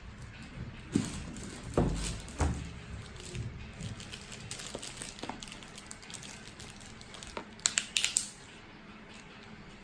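Plastic wrapping crinkling and crackling as it is handled and pulled off a cardboard collectible box, with a few knocks of the box early on and a louder burst of crackling near the end.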